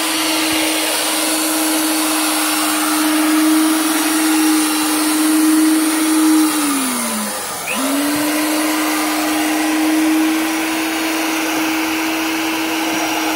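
Drill motor driving the Power Krawl stair climber's chain-driven gearbox and tracks: a steady motor whine with gear and chain noise. The motor winds down about six and a half seconds in and starts up again about a second later.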